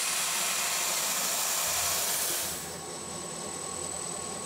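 CNC mill running: a loud, steady hiss that drops to a quieter hiss with a thin, high steady whine about two and a half seconds in.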